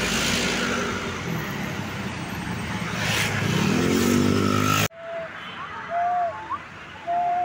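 Large tour bus passing with its diesel engine and tyre roar, the engine note climbing as the bus accelerates. It cuts off suddenly about five seconds in, leaving a quieter background with a few short high notes.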